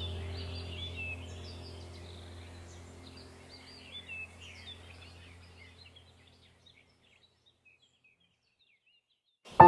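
Small birds chirping and twittering over a low steady hum, all fading out to near silence about two-thirds of the way through.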